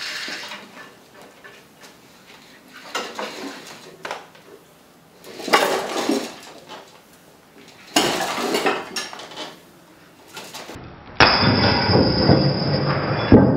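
Steel weight plates and chain clinking in separate bursts as they are hoisted by rope and pulley against a glued wood joint. About eleven seconds in, the joint gives way and the plates and chain crash down onto the concrete floor, clattering and rattling.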